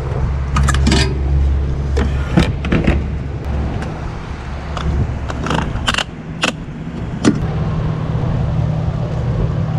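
Steady low hum at a gas pump while a car is being refuelled, with a string of sharp clicks and clunks of handling. The hum is heaviest in the first few seconds.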